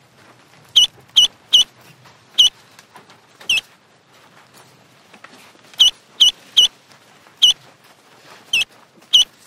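Ducklings peeping: short, high-pitched peeps, about eleven in all, several coming in quick runs of two or three.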